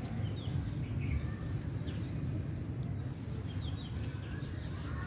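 Small birds chirping now and then, short falling notes, over a steady low rumble.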